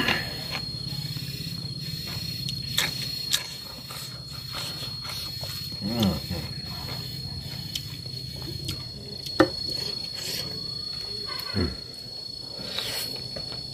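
Eating sounds: fingers working rice on a steel plate and chewing, with scattered small clicks, over a steady high-pitched drone. Two low sliding sounds come about six seconds in and again near the end.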